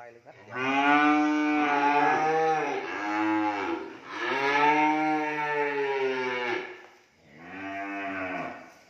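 Young cattle mooing: three long moos, the last one shorter and quieter.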